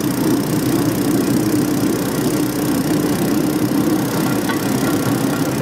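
Small engine of a motorized railcart running steadily as the cart rolls along the track.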